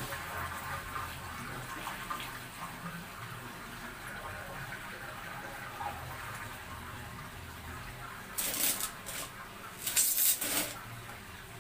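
Water poured from a plastic dipper onto dry rice-bran feed in a basin, trickling steadily. Near the end come two short, louder splashes as the dipper is filled from a tub of water and emptied again.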